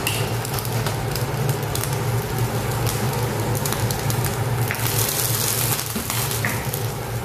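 A covered pot of vegetable and meat stew simmering on a gas stove: irregular bubbling and crackling over a steady low hum.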